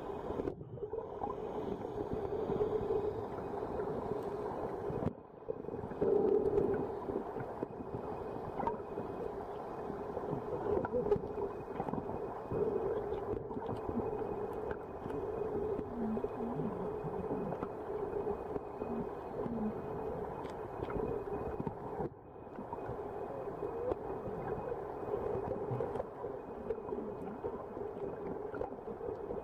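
Muffled underwater drone and sloshing picked up by the sealed microphone of a waterproof Nikon Coolpix AW100 held under the sea surface in shallow water, with two brief drops in level.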